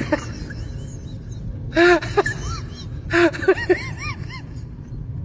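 A person's voice making two short bursts of cries, each rising and falling in pitch, about two and three seconds in, over a steady low rumble.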